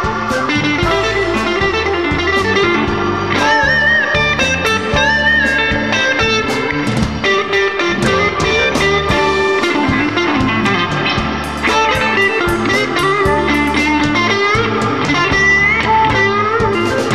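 Electric Chicago blues band playing an instrumental passage, electric guitar to the fore with bending lead lines over bass and drums.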